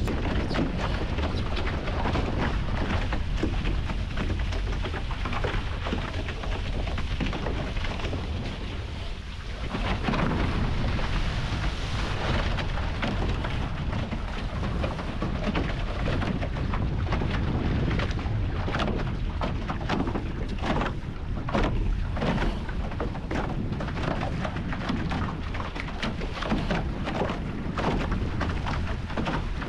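Wind buffeting the action camera's microphone with a heavy rumble, over water rushing and splashing along the catamaran's hulls as it sails, full of short crackling spray hits. The sound dips briefly about nine seconds in.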